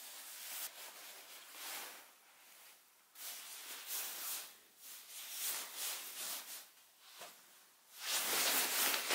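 Clothing rustling: a padded down jacket and gloves rubbing as they are put on, in an irregular string of soft swishes that grows louder near the end.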